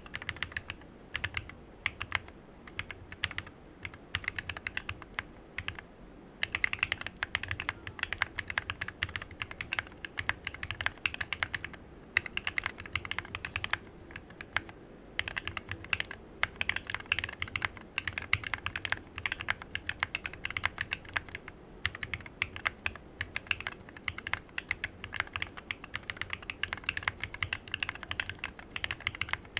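Typing on a Planck Rev6 ortholinear mechanical keyboard with Cobalt POM linear switches, lubed and filmed, and PBT keycaps: a fast, steady run of keystroke clacks with short pauses between bursts.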